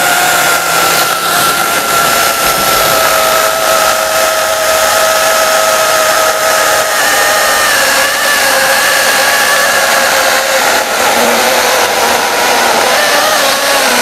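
Dual-battery cordless chainsaw (KM Grand LR-C160, 16-inch bar) cutting through a thick log, its electric motor whining steadily over the rasp of the chain in the wood. The pitch sags as the chain bites, rises briefly about halfway through, then drops lower again near the end as the load increases.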